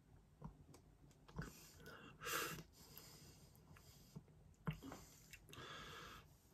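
Quiet mouth and breath sounds of someone tasting a stout: a few lip and tongue clicks, a short breathy rush about two seconds in, and a longer breath out near the end.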